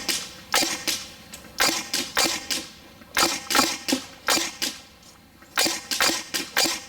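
EMG Seekins Precision SP223 electric airsoft rifle (AEG) firing single shots, each a sharp clack. About a dozen come at an uneven pace, often two in quick succession, with a short lull near the five-second mark.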